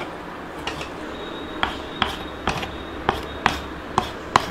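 Knife blade chopping boiled goat intestine into small pieces on a wooden chopping block: a series of sharp knocks, about eight of them, roughly two a second.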